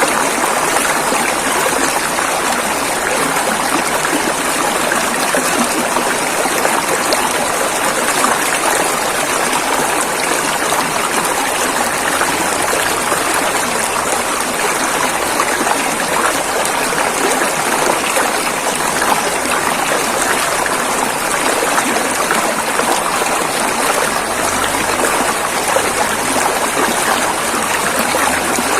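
A river running over rocks: a steady rushing and babbling of flowing water, even and unbroken throughout.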